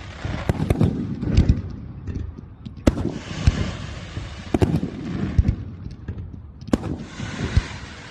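Fireworks display: aerial shells bursting in irregular bangs, several a second at times, with a crackling hiss of effects between them.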